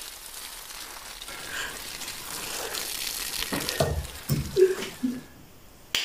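Hiss of water squirted from plastic squeeze eggs, followed by a few dull thumps and short bursts of laughter, then a single sharp slap of hands in a high-five near the end.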